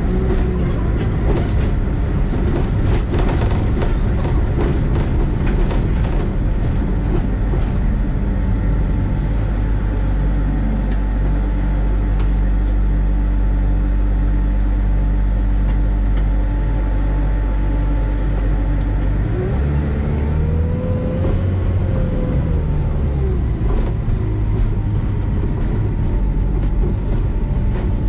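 Bus engine running steadily with a low drone, then a rising and falling pitch about two-thirds of the way through as it accelerates and changes speed.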